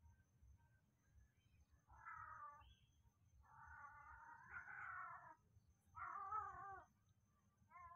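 Four drawn-out, wavering animal calls. The longest lasts about two seconds, and a shorter one comes near the end.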